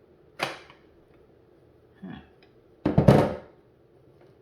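Metal tool work on a water heater's temperature-sensor pipe: a sharp knock about half a second in, then a louder cluster of knocks and clatter around three seconds in.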